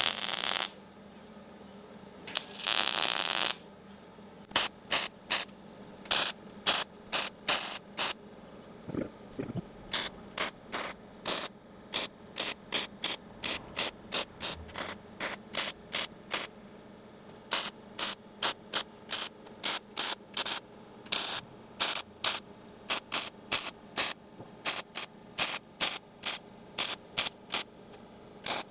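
MIG welder stitching a thin sheet-metal patch panel with many short tack welds. Two longer crackling bursts at the start are followed by a steady run of brief tacks, about two a second.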